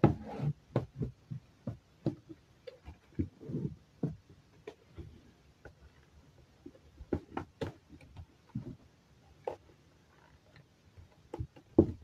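Cardboard packaging and plastic parts being handled: scattered knocks, taps and scuffs as pieces are pulled out of a box.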